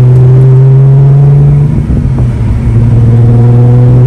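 Supercharged Nissan 370Z's 3.7-litre V6 running steadily under way. Its note briefly drops and breaks up about halfway through, then steadies again.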